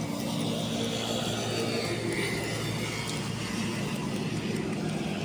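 A steady engine hum, running evenly throughout.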